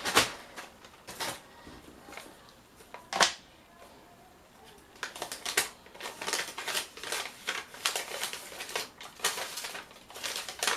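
Packaging being handled: a few sharp crinkles, then a stretch of dense crinkling and rustling of a paper or plastic mailer.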